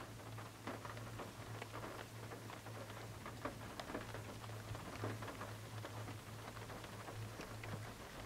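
Light rain pattering, with scattered drops ticking irregularly over a steady low hum.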